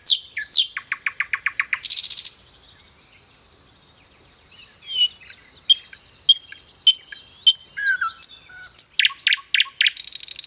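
Songbird singing in quick phrases: fast trills of repeated notes and downward-sweeping notes, a short lull about two seconds in, then paired high chirps and a dense trill near the end. It is offered as an example of a male's breeding-season song to attract a female.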